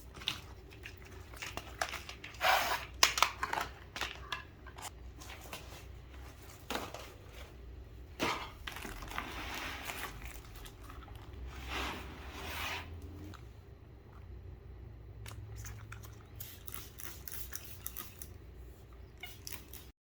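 Plastic packaging being handled and torn open, with irregular rustling and crinkling. The crackles come in clusters, the loudest a few seconds in and another stretch around the middle.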